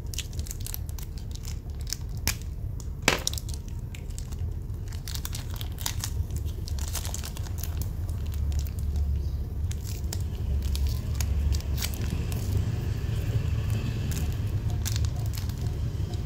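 Irregular crinkling and small clicks from objects being handled close to the microphone, over a steady low hum.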